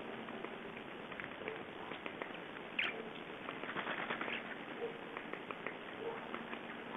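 Birds feeding on snowy ground: scattered small ticks and taps from pecking, over a steady hiss, with one short downward-sliding call about three seconds in.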